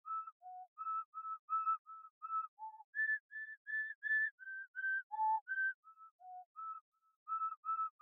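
A tune whistled in short, clear notes, about three a second, stepping up and down in pitch, with a brief pause about seven seconds in.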